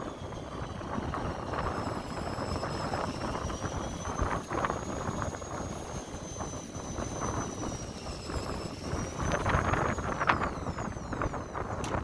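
Steady wind and engine noise on the deck of a fishing boat at sea, with a thin high whine that wavers slowly in pitch and drops away near the end.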